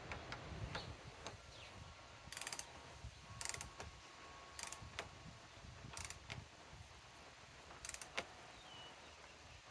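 Ratchet of a torque wrench clicking in short strokes as a bolt is tightened toward 40 foot-pounds. Brief bursts of clicks come about every second or two, fairly faint.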